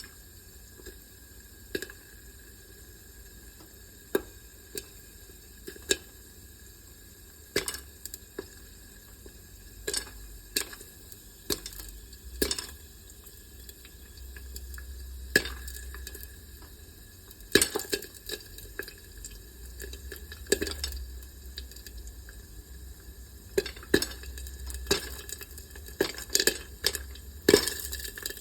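Popcorn kernels popping: single sharp pops, scattered at first, about one a second, then coming closer together near the end, over a low hum and a faint sizzle.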